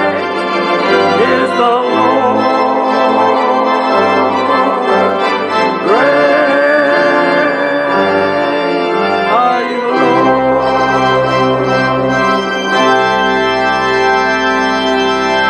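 Organ music playing sustained chords to close a hymn. About ten seconds in, a deeper final chord with a strong bass enters and is held.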